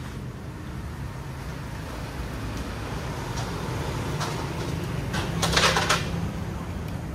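Steady low rumble of passing road traffic, with a brief rush of noise about five and a half seconds in.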